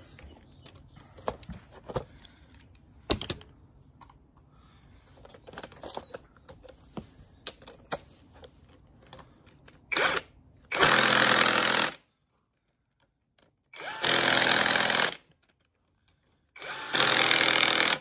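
Cordless impact wrench tightening engine-mount bolts: a short blip about ten seconds in, then three loud bursts of hammering, each a little over a second long. Before that, scattered light clicks and knocks of bolts and tools being handled.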